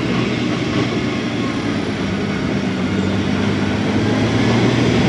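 Heavy truck's diesel engine labouring up a steep dirt grade, a loud steady drone that grows a little louder as the truck comes closer.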